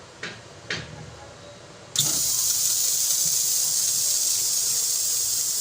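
Two sharp clicks, then about two seconds in a loud, steady hiss of pressurised gas starts abruptly and keeps going.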